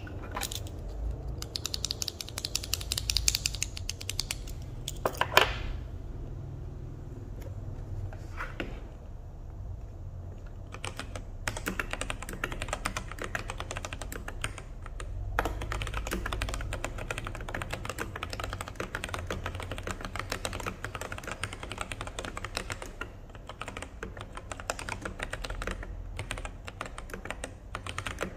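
Typing on a mechanical keyboard with Kailh Polia tactile switches: a quick run of keystrokes, one louder key strike about five seconds in, a stretch of scattered single presses, then steady fast typing from about eleven seconds on.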